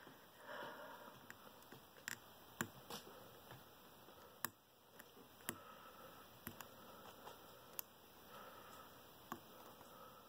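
Faint, scattered sharp clicks and ticks of a lock pick and tension wrench working the pins of a large Master Lock No. 19 padlock, about nine clicks spread unevenly across several seconds.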